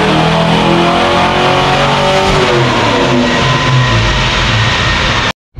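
Ford Fox-body Mustang GT's 5.0-litre V8 running hard on a chassis dyno, its pitch holding high and then falling over a couple of seconds as it winds down from the pull. The sound cuts off suddenly near the end.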